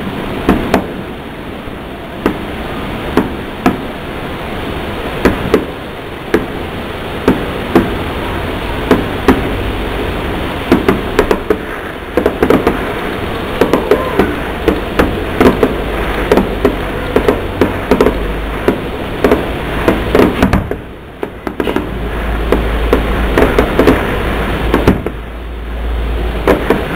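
Distant aerial fireworks going off in a rapid, irregular string of sharp bangs and pops, thickest in the middle stretch, with a low rumble underneath in the last few seconds.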